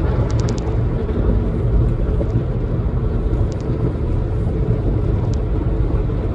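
Steady low rumble of a car in motion, engine and tyre noise heard inside the cabin, with a few faint light ticks near the start.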